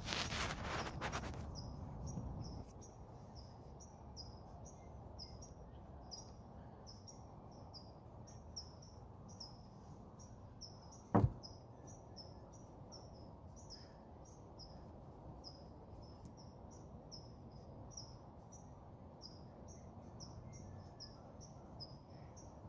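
Steady high-pitched chirping from an outdoor animal, about two to three short chirps a second, over a low background hum. A brief burst of handling noise at the start and one sharp click about eleven seconds in.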